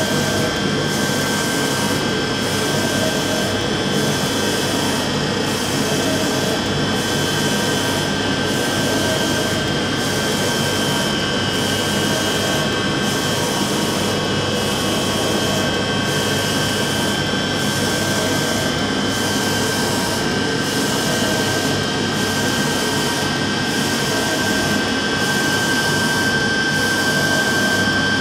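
UV flatbed printer running while it prints on leather: a steady mechanical whir with a couple of steady tones. A high hiss drops out briefly about every second and a half.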